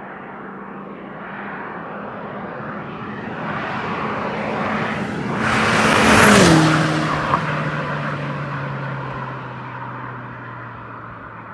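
Seat Córdoba Cupra's turbocharged 1.8T four-cylinder, with a 3-inch downpipe and 2.5-inch exhaust, driving past at a steady speed. It grows louder as it approaches, drops in pitch as it goes by about six seconds in, then fades away, with a short sharp click about a second after it passes.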